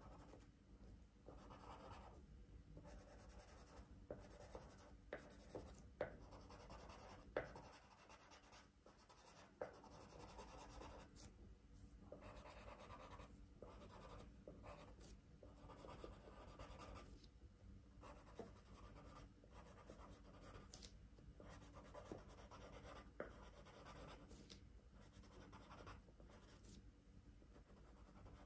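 Faint scratching of a drawing tool on paper in short, repeated strokes with brief pauses, as zigzag lines are drawn, with a few light taps among them.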